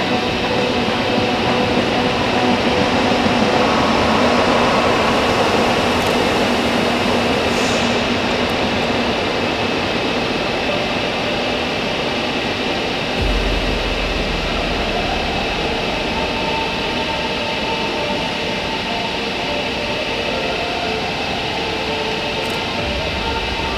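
DB class 101 electric locomotive standing at the platform, its cooling fans and electrics running with a steady hum and several steady whining tones. About halfway in, a deep rumble joins and a rising whine sets in as a double-deck regional train pulls out on the neighbouring track.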